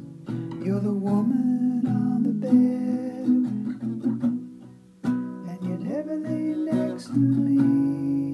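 An acoustic guitar is strummed and fingered while a man's voice sings along without clear words. The playing dies away about halfway through, starts again suddenly, and ends on a chord left ringing.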